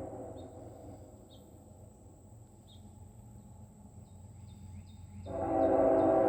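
Horn of an approaching CSX locomotive: a blast fading away at the start, then a loud, steady multi-note blast beginning about five seconds in. Between the blasts there is a low rumble and a few faint short chirps.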